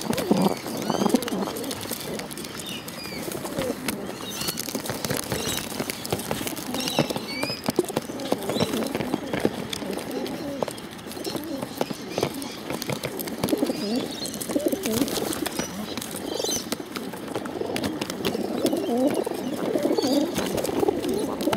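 Pigeons pecking at mixed seed inside a clear plastic bottle: a dense, irregular run of hard taps and rattling grain, with pigeons cooing throughout and more strongly near the end.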